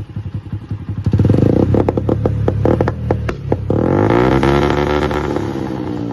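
Honda CD 70 motorcycle's single-cylinder four-stroke engine revving, its exhaust popping and cracking with a quick run of backfires in the first half. About two-thirds of the way through the revs climb and then fall back.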